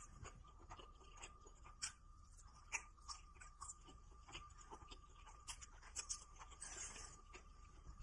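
Faint chewing of a fried chicken sandwich with the mouth closed: soft, irregular mouth clicks and small crunches.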